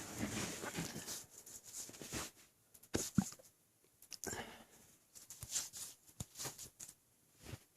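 Close-up mouth and throat noises of a man drinking and swallowing while overfull. A noisy stretch lasts about two seconds, then come scattered short clicks and gulps, with a stronger throaty jolt about three seconds in.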